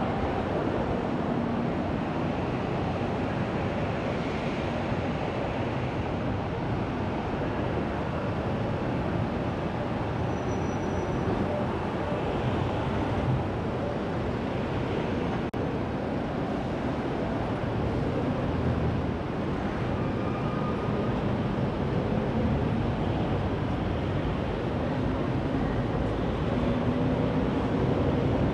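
Steady road and traffic noise from a car being driven through busy city streets.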